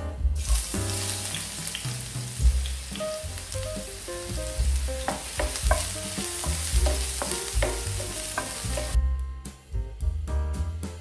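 Potatoes frying in hot oil: a steady sizzle that starts about half a second in and cuts off suddenly near the end.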